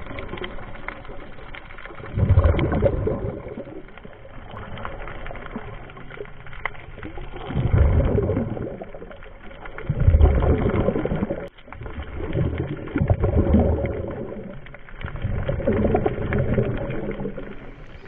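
Scuba breathing heard underwater: the diver's exhaled bubbles rush up from the regulator in a low gurgle about every two to three seconds.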